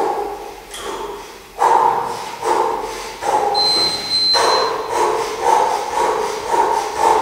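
A man breathing hard in rhythm while straining through a slow inverted row on suspension-trainer straps. The breaths come about once a second at first and quicken to about two a second in the second half. A short high beep sounds midway.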